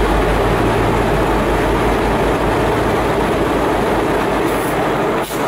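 Diesel-electric locomotive engine running close by, a steady heavy rumble with a dense mechanical noise over it. There is a brief dip and click near the end.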